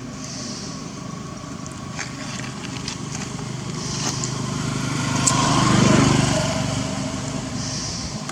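A motor vehicle's engine running, growing louder to a peak about six seconds in and then fading, as when a vehicle passes by.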